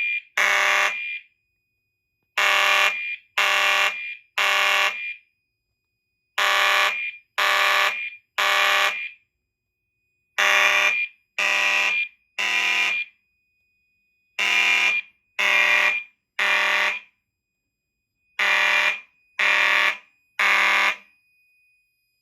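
Fire alarm horn strobes, including a mechanical horn run on full-wave rectified panel power, sounding the temporal code-3 pattern: three buzzy blasts, a pause, repeating about every four seconds. The system is in alarm after the smoke detector was tripped with spray smoke. A faint high steady tone carries on between the groups.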